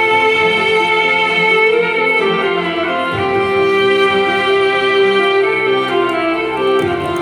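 Violin playing a slow melody of long held notes over a low, sustained accompaniment.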